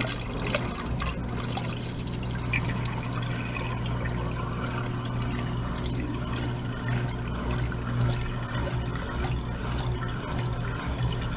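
Soapy wash water from a Consul top-load washing machine's drain hose pouring in a steady stream into a laundry tub and running to its drain, as the machine empties its wash cycle, with a low steady hum underneath.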